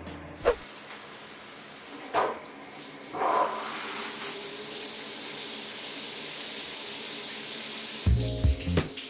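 Round rain shower head running, water spraying down in a steady hiss, with a few brief knocks in the first few seconds. Music comes back in near the end.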